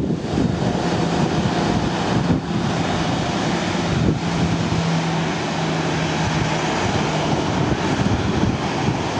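Jet airliner engines running at an airport, a steady drone with a low hum through most of it, mixed with wind on the microphone.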